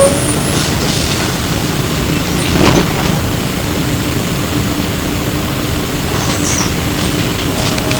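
Steady rumble inside a Flyer E902 electric trolleybus on the move, with a short sharp rattle a little under three seconds in and a steady low hum from about three seconds on.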